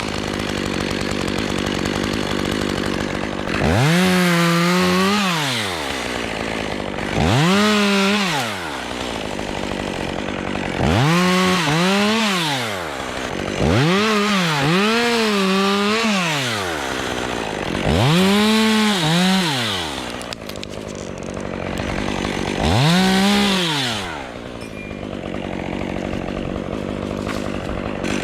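Chainsaw revving up for cuts of a second or two and dropping back to idle in between, about seven times over, as a climber cuts Leyland cypress limbs.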